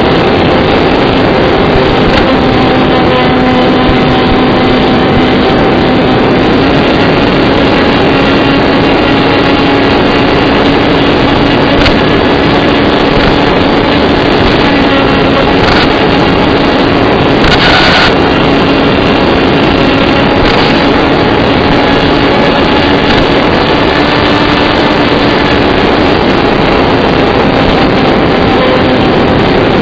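Electric motor of an AR Wing Mini flying wing running at steady throttle in flight, a steady hum with slight changes in pitch, under loud rushing wind noise and a few brief crackles.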